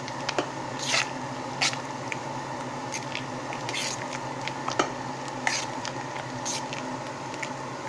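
A pot of thick chili beans: wet squelching and scattered small irregular pops, over a steady hum.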